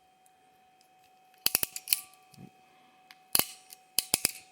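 Self-adjusting ferrule crimping tool clicking as it is squeezed onto a wire ferrule: short runs of sharp clicks, starting about a second and a half in and coming again twice later.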